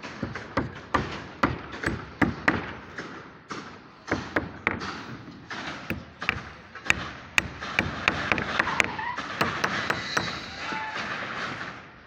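Irregular sharp knocks and ringing taps of steel fixing and formwork work on a building site, several a second and unevenly spaced, over a steady background hum of site noise.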